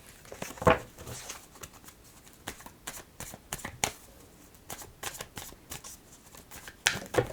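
Tarot cards being handled, shuffled and laid down: a run of short flicks and rustles of card stock, with a sharper snap just under a second in and a couple more near the end.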